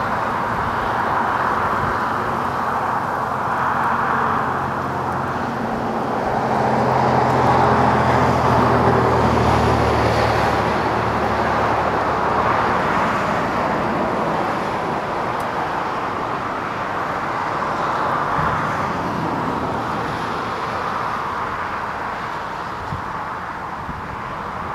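Two EMD GP39-2 diesel locomotives' turbocharged V12 engines passing with a steady drone, loudest from about six to twelve seconds in, then fading into the steady rumble of tank cars and boxcars rolling past.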